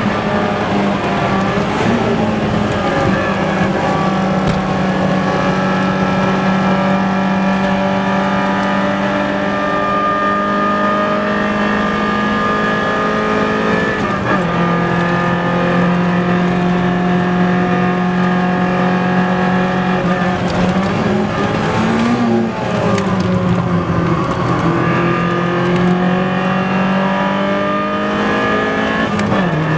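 Four-cylinder car engine running flat out at high revs under full throttle, with the note held steady for long stretches. The pitch drops sharply at an upshift about halfway through and again near the end, with a short rise and fall in between about two-thirds of the way through.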